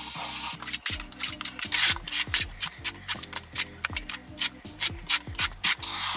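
A cordless drill with a paddle mixer whirring in a bucket of thinset, cutting off about half a second in. Then a steel notched trowel scrapes and combs thinset mortar into ridges in quick repeated strokes, several a second.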